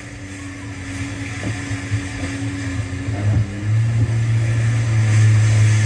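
Jet ski engine running at speed, a steady low drone over the rush of water and spray. The engine grows louder about three and a half seconds in.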